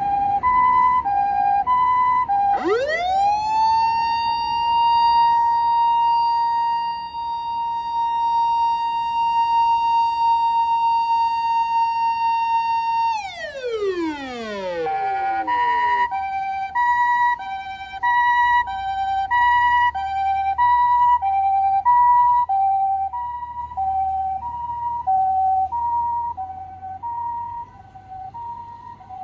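Japanese ambulance electronic siren (Osaka Siren MK-9) sounding its hi-lo "pee-po" two-tone, about one high-low pair a second. A few seconds in it switches to the MK-9's characteristic "woo" wail: the tone sweeps up, holds steady for about ten seconds, then falls away. The two-tone then resumes to the end.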